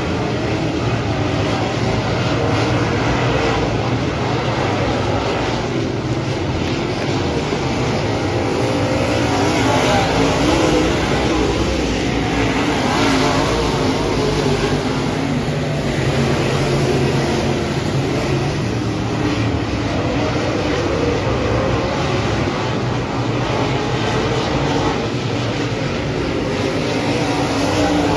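Dirt-track race car engines running laps around a clay oval. The pack makes a continuous din that swells and wavers as cars pass close.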